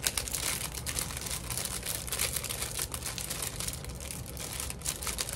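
Paper rustling and crinkling as small paper craft pieces and their packaging are handled and shuffled, with many small irregular clicks.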